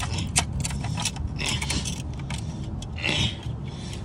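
Clicks, clinks and scrapes of things being handled, repeated throughout, over a steady low rumble.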